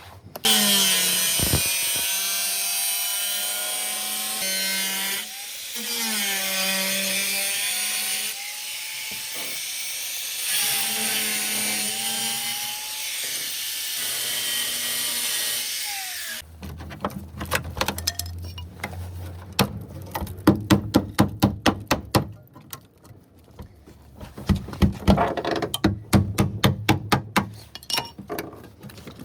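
A power tool cuts or grinds sheet metal, loud and hissing, its motor pitch dipping and recovering under load. About halfway through it stops suddenly, and a run of sharp, rapid crackling clicks follows in bursts.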